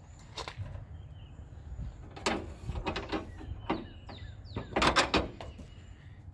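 Scattered knocks, clicks and scrapes around the car's raised hood, loudest about two and five seconds in.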